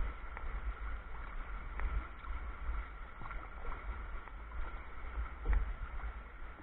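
Water lapping and splashing against the hull of a sea kayak under sail, with occasional small splashes and a steady low wind rumble on the microphone.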